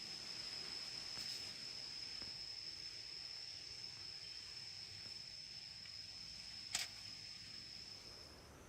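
An insect singing: one steady, high-pitched continuous trill that stops shortly before the end. A single sharp click comes about two-thirds of the way through.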